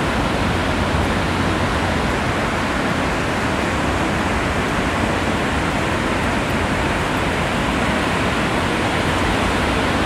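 Steady, even roar of ocean surf breaking along a sandy beach, blended into one continuous wash with no single waves standing out.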